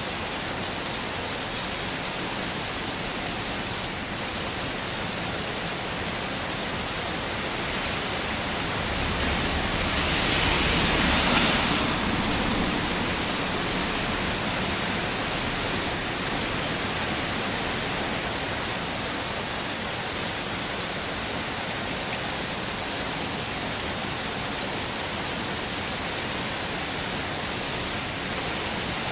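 Heavy rain falling steadily. It swells louder for a few seconds around the middle, with a low rumble underneath, and the level dips briefly three times at even spacing.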